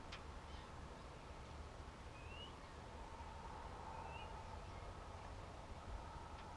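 Faint outdoor quiet with a low wind rumble, a single sharp click at the very start and a small bird giving two short rising chirps, about two and four seconds in.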